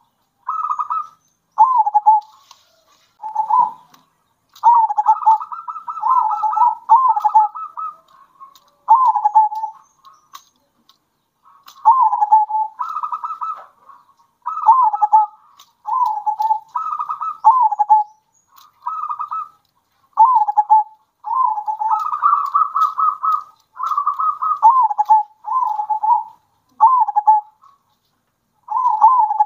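Zebra doves (perkutut) cooing in a string of short rolling phrases, each dipping in pitch, with brief gaps between. Several birds call in turn.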